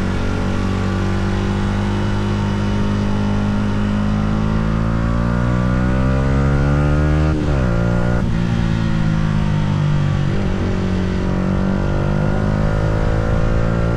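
Yamaha R125's single-cylinder four-stroke engine pulling under acceleration, its revs climbing steadily. About halfway through the revs cut out sharply and pick up lower, as in an upshift, then climb again.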